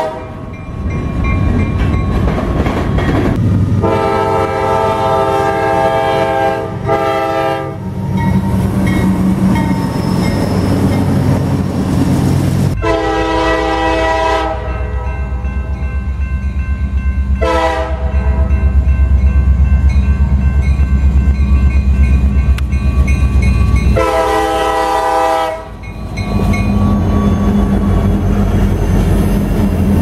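Diesel freight locomotive air horns sounding in several blasts: a long one about four seconds in, a short one near the middle, a brief toot soon after and another blast near the end. Between the blasts comes the heavy low rumble and wheel clatter of passing locomotives and freight cars.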